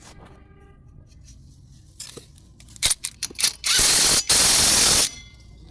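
Several sharp metallic clicks of hand tools, then a loud hiss lasting about a second and a half, broken briefly about a third of the way through.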